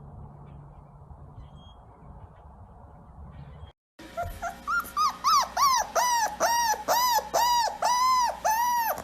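Dog whining in a quick series of short high-pitched whines, about two a second, each rising and falling in pitch. They start about four seconds in, after a stretch of faint low background hum.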